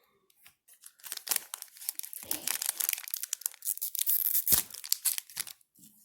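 Foil trading-card booster pack being torn open and its wrapper crinkled, a dense crackle starting about a second in. There is one dull thump about four and a half seconds in.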